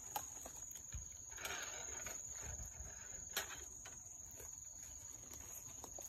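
An insect's steady, high-pitched trill, one unbroken tone, with faint clicks and a soft rustle about a second and a half in.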